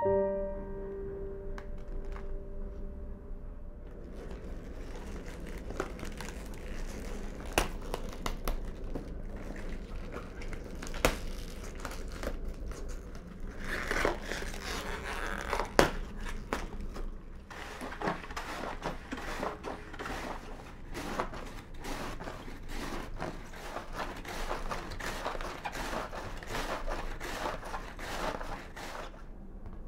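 Fresh cabbage leaves crinkling and crackling as hands handle the head, then the cabbage being shredded on a cabbage slicer: a fast, even run of short scraping strokes through the second half. A fading piano note is heard briefly at the start.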